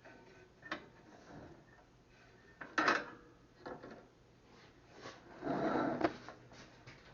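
Metal tools and parts being handled on a workbench: a few separate clinks and knocks, the loudest about three seconds in, and a longer rattle about five and a half seconds in.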